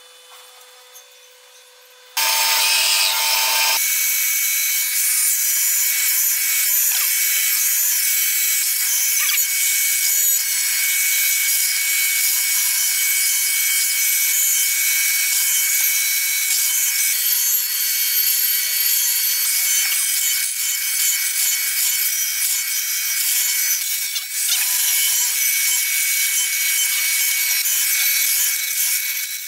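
Faint pencil scratching on wood, then about two seconds in a hollow-chisel mortiser starts up and cuts square mortises into a hardwood beam: a loud, steady grinding and chipping of the auger and chisel in the wood, with a brief dip about three-quarters of the way through.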